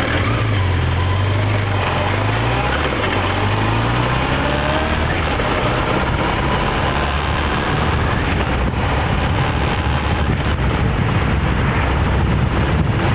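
Motorcycle engine running as the bike rides along, its note rising and falling a few times in the first four seconds, then steadier, under a steady rushing noise.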